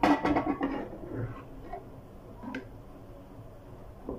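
Metal ladle stirring kidney bean curry in a metal pot, scraping and clinking against the pot. The clatter is loudest in the first half-second, then falls to quieter stirring with a few light ticks.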